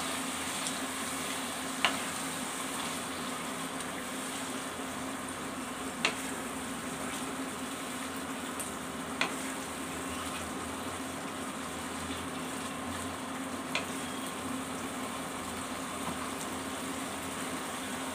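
Onion paste and tomato puree sizzling as they fry in hot oil in a kadai, stirred with a spatula that knocks sharply against the pan four times, spread out over the stretch.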